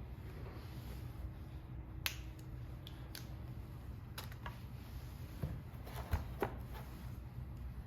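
A few sharp plastic clicks and small knocks, spaced a couple of seconds apart, as the AXS battery is handled and fitted onto a RockShox Reverb AXS dropper post. The loudest click comes about six seconds in. A low steady hum runs underneath.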